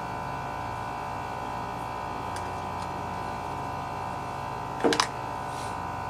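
Steady electrical hum throughout, with a faint click about two seconds in and a sharper double metallic click about five seconds in, from a small screw being taken off a lawn tractor carburetor's linkage.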